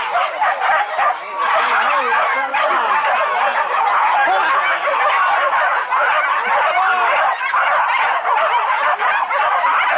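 A pack of hunting dogs barking and yelping together without pause, many voices overlapping: the dogs giving tongue as they run after wild boar.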